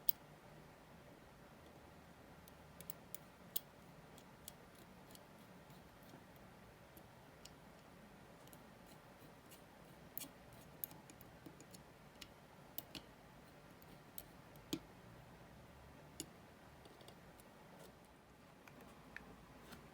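Small watchmaker's tools clicking and tapping on watch parts: scattered, irregular sharp clicks over a faint room hum, one of the louder clicks about fifteen seconds in.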